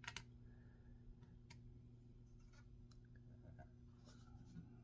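Near silence over a low steady hum, with a few faint clicks from handling small laptop screws and a screwdriver.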